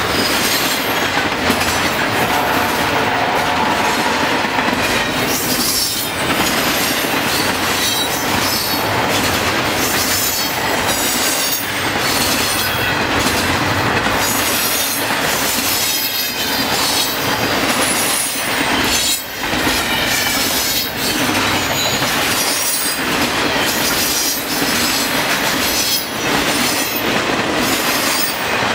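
Double-stack intermodal train cars rolling past at speed: a loud, steady rumble of steel wheels on rail with irregular clacks over rail joints and faint, wavering high-pitched wheel squeals.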